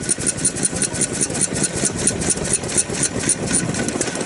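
Daikin CD 4-horsepower vintage stationary engine running at a slow idle, a steady beat of about four strokes a second with a sharp click on each.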